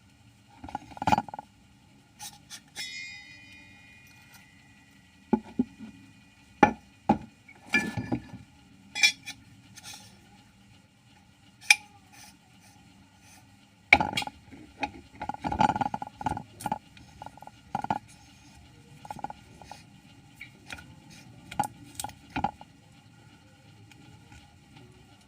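Scattered metallic clinks and knocks of tools and parts being handled at a coil-winding machine, with one ringing metal strike about three seconds in, over a faint steady machine hum.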